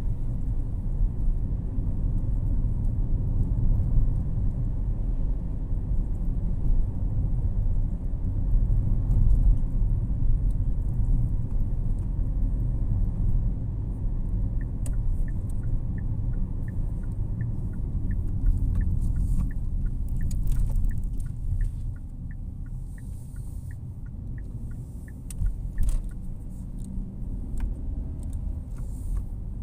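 Low, steady road and engine rumble heard from inside a moving car. From about halfway, a light ticking about twice a second that runs for roughly ten seconds, typical of the turn indicator while the car slows for a turn, followed by a single short bump near the end.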